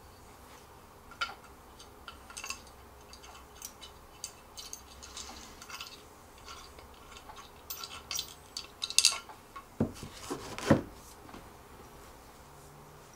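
Scattered light clicks and clinks of metal bolts and hardware being handled while a bolt is fitted into a wooden chair leg, with a few louder knocks of wood and metal late on.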